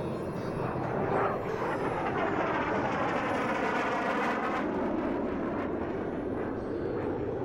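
Aircraft passing overhead: a steady rushing roar whose tone sweeps up and down as it goes by.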